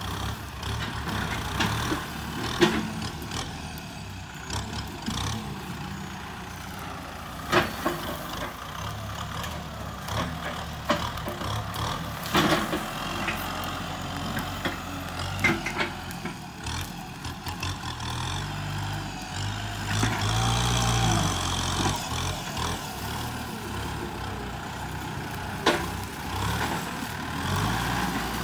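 The four-cylinder turbo diesel of a Kubota M6240 SUH tractor running under load as it pushes earth with its front blade. The engine note rises and works harder for a few seconds about two-thirds of the way through. Scattered sharp cracks and knocks are heard throughout.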